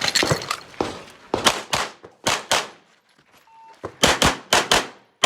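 9mm Glock 34 pistol fired in quick pairs of shots (double taps) after the start beep, with a short pause about three seconds in, then three more fast pairs near the end.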